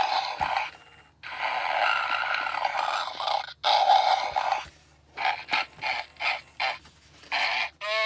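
A 2004 Santa Homer Simpson toy figure's small, tinny speaker playing a recorded Homer vocal sound effect that is not speech: two long, noisy breath-like sounds, then a quick series of short puffs.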